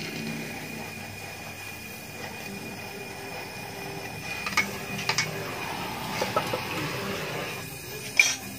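Stick (arc) welding on a scooter exhaust: the arc crackles steadily, with a few sharp pops, the loudest near the end.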